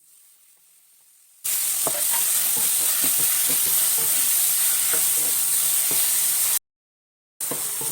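Chopped tomatoes frying in hot oil in a kadai, a steady sizzle with a spoon stirring and scraping the pan. The sizzle starts suddenly about a second and a half in, drops out completely for under a second near the end, and comes back.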